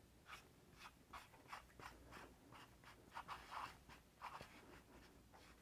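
Faint, scratchy creaking in short strokes, two or three a second, from the hand-turned T-handle of an MGW Sight-Pro SP-1000 sight pusher as its fine-threaded screw drives the pusher block against a pistol sight, forcing it through the slide's dovetail.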